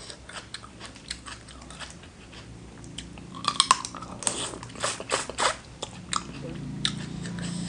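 A person eating close to the microphone: wet chewing and smacking with crunchy bites, coming as scattered sharp clicks that bunch together about halfway through.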